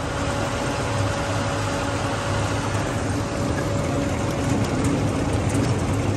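Meyers forage wagon unloading chopped triticale onto a silage bagger: the machinery runs steadily under a continuous rushing hiss of chopped forage pouring off the wagon's conveyor, with a faint steady whine that stops about three-quarters of the way through.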